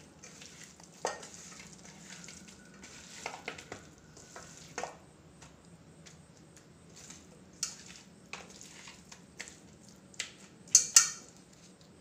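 A hand squishing and turning chicken pieces in a wet spice marinade in a stainless steel bowl, with scattered clicks and knocks against the bowl, the loudest pair near the end. A faint steady hum runs underneath.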